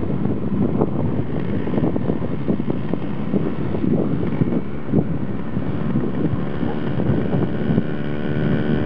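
Wind buffeting the microphone over the distant buzz of small dirt-bike engines, which grows clearer and steadier over the last couple of seconds as the bikes come closer.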